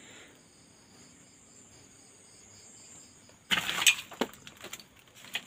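A cricket chirps faintly and steadily, about four pulses a second. About three and a half seconds in comes a loud burst of rustling and crackling, as dry banana leaves and undergrowth are brushed through on foot.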